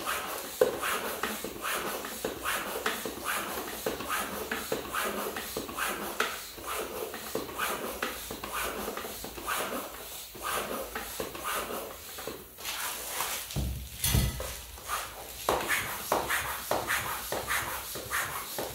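Park Tool floor pump worked in steady strokes, each stroke a short rasping hiss of air, about two a second, pumping up a tubeless bicycle tyre. The pumping pauses briefly with a dull thump a little past halfway, then starts again.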